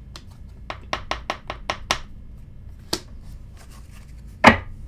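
Tarot cards handled and shuffled by hand: a quick run of about eight light slaps, then a single tap and a louder knock near the end.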